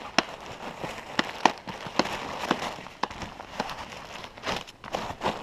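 Irregular sharp clicks and crinkling, about two or three a second, as food bags and camp gear are handled.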